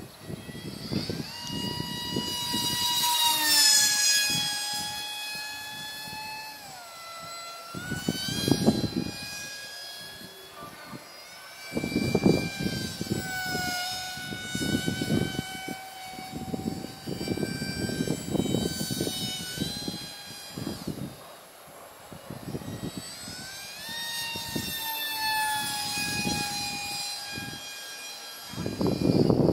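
Electric RC plane's 2205 2300 kV brushless motor and three-blade 5-inch propeller whining in flight. The pitch slides down as the plane passes, about four and seven seconds in, and rises again near the end. Gusts of wind rumble on the microphone.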